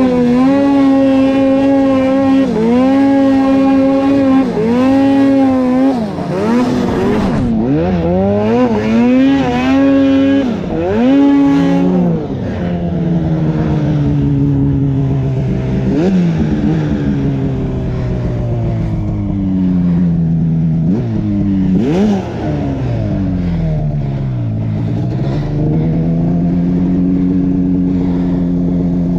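Two-stroke mountain snowmobile engine under throttle in deep powder. For the first several seconds it revs up and drops back about once a second as the rider works the throttle, then settles to a lower, steadier pitch with occasional brief dips and one longer slowdown near the end.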